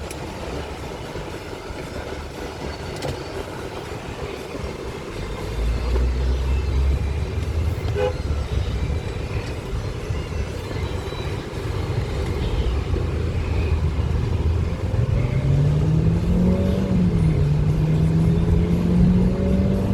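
Buick Cascada's 2.0-litre turbocharged four-cylinder driving, with a steady low rumble of engine and road. About three-quarters of the way in, the engine note climbs under acceleration, dips briefly at a gear change and then holds high.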